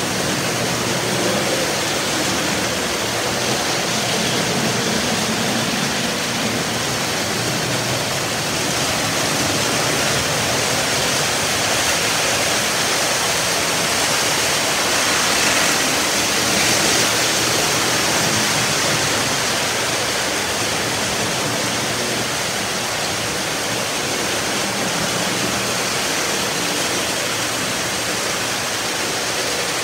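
Several early-1950s Lionel O-gauge diesel trains with twin-motor F3 locomotives running at once on MTH RealTrax track, a loud steady rushing rumble of wheels and motors. It swells a little about halfway through.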